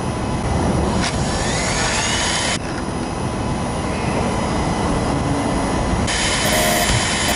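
895 brushed DC motors of a homemade RC car running, driven through a BTS7960 motor driver, with a whine that rises in pitch as they speed up, cuts off suddenly, then comes back about six seconds in.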